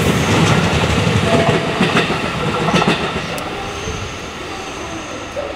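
A train running close by, its wheels clacking over rail joints several times, the noise fading away after about three seconds.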